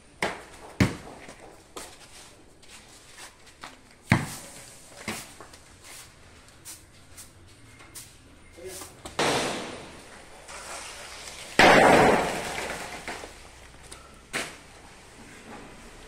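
Coconuts and cut fronds falling from a coconut palm: several sharp thuds as they land, and two longer rustling crashes past the middle, the second the loudest, fading over about a second.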